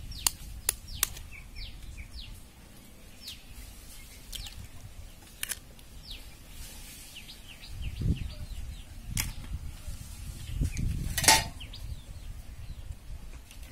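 Eggs being cracked with a knife blade: several sharp taps of the steel knife on the eggshells, spaced a few seconds apart, the loudest near the end.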